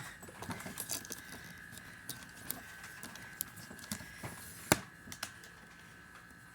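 Eggs and their carton being handled: scattered light clicks and knocks as eggs are set into the plastic egg holders of a refrigerator door, with one sharper knock about halfway through. A faint steady high tone runs underneath.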